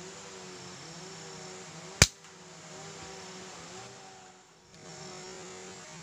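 A single sharp shot from a scoped air rifle about two seconds in, over a steady background hum of forest insects.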